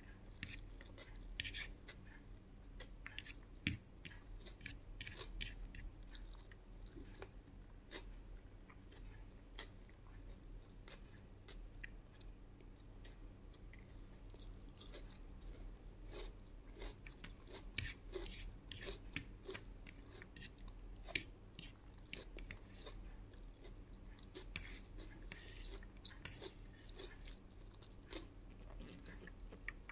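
A person chewing a meal of rice and fried fish, with many short mouth clicks throughout.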